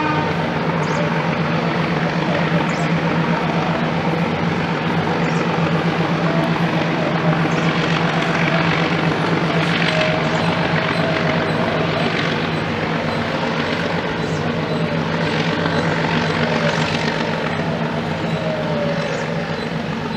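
Nilgiri Mountain Railway steam locomotive working out of sight: a steady, heavy running rumble that fades a little toward the end.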